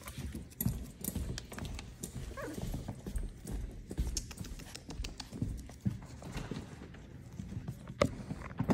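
Cavapoo puppies' claws tapping and clicking irregularly on a hardwood floor, mixed with low knocks from handling.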